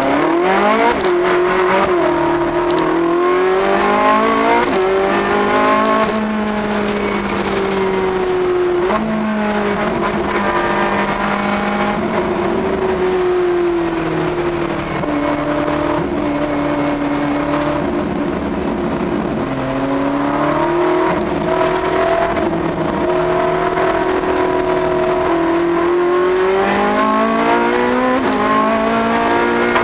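Car engine heard from inside the cabin while lapping a race track, revving up through the gears in repeated rising sweeps and dropping back in pitch on lifts and downshifts for the corners.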